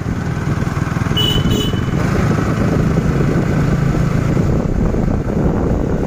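Motorcycle running steadily while riding along a road.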